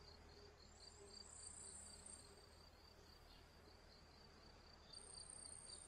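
Near silence with the faint, steady chirring of meadow insects such as crickets, an even pulsing trill. A still higher, fainter buzz joins about a second in and again near the end.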